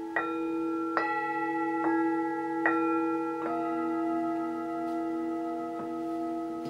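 Tibetan singing bowls struck in turn with a mallet: about five strikes roughly a second apart, then one more near the end, each bowl ringing on with a long, steady tone so the pitches overlap into a layered, sustained chord.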